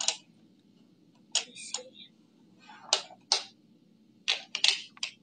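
Plastic base-ten blocks clicking against each other and the tabletop as they are picked up and set down: about nine separate sharp clicks, several close together near the end.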